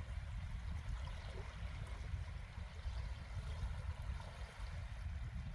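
Gentle surf washing on a beach, with a steady low rumble underneath.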